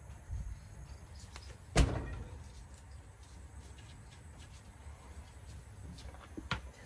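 A single solid thump about two seconds in as a mass of steamed sticky rice is turned out onto a wooden tray, with a lighter knock near the end.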